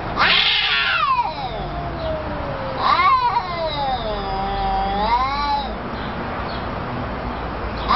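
Cats yowling at each other in a face-off: two long drawn-out yowls, the first starting high and sliding down, the second wavering up and down, the threat calls of a territorial standoff.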